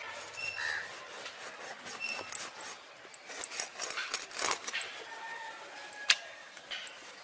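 Large boal catfish being cut crosswise on a boti blade: a run of short scraping, crunching strokes as the blade goes through the body near the tail, followed by a single sharp click about six seconds in.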